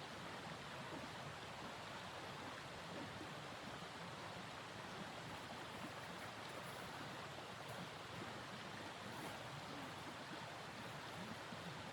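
Steady rushing noise of blizzard wind, even throughout with no distinct gusts.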